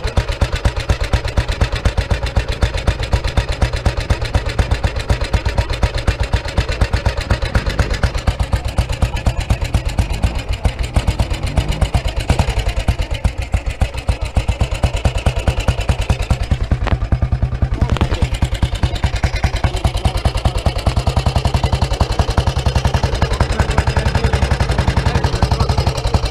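A motorcycle engine idling steadily close by, with a fast, even pulse.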